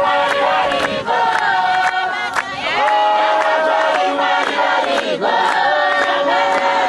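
A congregation singing a hymn together, many voices in harmony, with steady hand-clapping keeping the beat.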